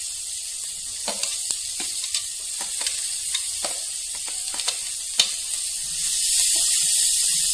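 Chopped onions sizzling as they go into hot oil in a steel kadai, with a steel ladle scraping and clicking against the steel plate and pan and one sharp clack about five seconds in. The sizzle grows louder near the end as the onions are stirred into the oil.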